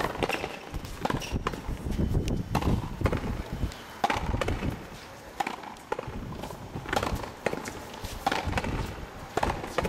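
Frontenis rally: the rubber ball smacking off strung rackets, the front wall and the concrete floor, an irregular series of sharp knocks about one every half second to second.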